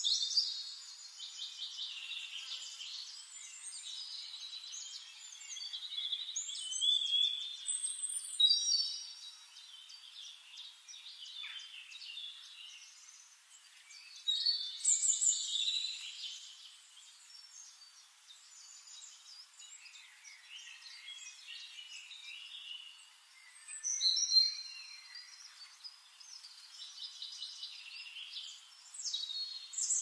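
Songbirds chirping and singing: bursts of high, quick chirps, trills and short whistles come and go every few seconds, loudest about eight and twenty-four seconds in, over a faint steady hiss.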